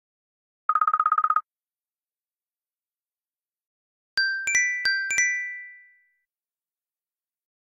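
Two iPhone tones played one after the other. First comes a short, rapid buzzing beep lasting under a second. A few seconds later a chime of about six quick bell-like notes rings out and fades.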